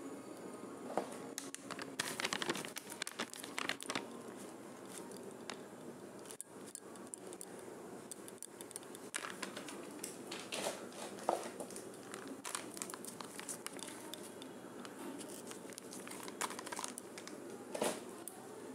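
Plastic packaging crinkling and rustling in irregular bursts, with scattered light clicks and taps.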